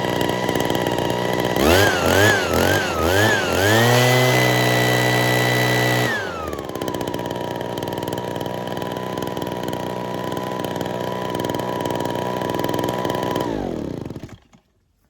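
Small backpack leaf blower engine running, freshly fitted with new fuel lines and primer bulb. Its throttle is blipped about four times, then held high for a couple of seconds, and it drops back to a steady idle. Near the end it is shut off and winds down; it runs properly again after the fuel-line repair.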